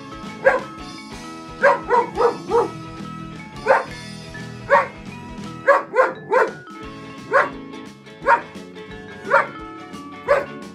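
German Shepherd dog barking in short, sharp barks, over a dozen of them, some single and some in quick runs of two or three, over background music.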